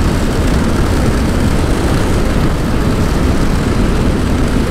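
Steady rushing wind noise on the microphone, heaviest in the low end, from an Ola S1 Pro Gen 2 electric scooter ridden at about 110 km/h.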